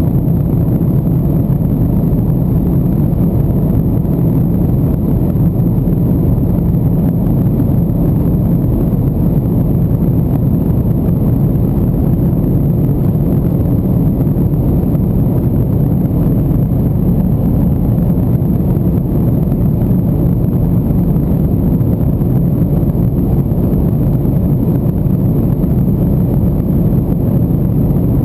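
Tuned Porsche 996 Turbo's flat-six, with tyre and wind noise, as a steady low drone while the car holds a constant high speed. The pitch and loudness do not rise, fall or break for any gear change.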